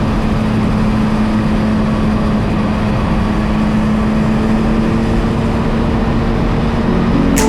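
Yamaha MT-09's three-cylinder engine holding a steady cruise, under heavy wind noise buffeting the rider's microphone. A short sharp click comes near the end.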